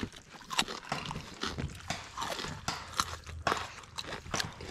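Close-up chewing of spicy noodles: irregular wet smacks and clicks of the mouth, several a second.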